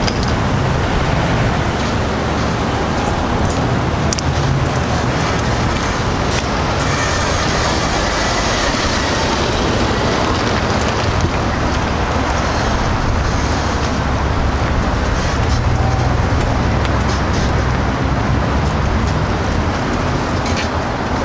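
Steady road-vehicle noise: a continuous low rumble with a hiss over it.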